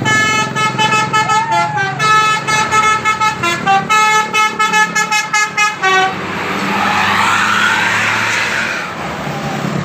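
Basuri 'telolet' multi-tone bus horn playing a fast tune of short, changing notes for about six seconds, then a few seconds of loud rushing noise.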